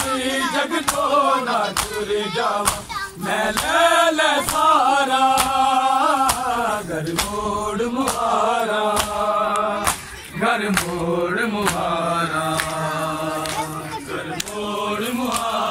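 Group of men chanting a noha (Shia lament) in chorus, with rhythmic matam: bare chests struck with open hands in regular sharp slaps a little more than once a second.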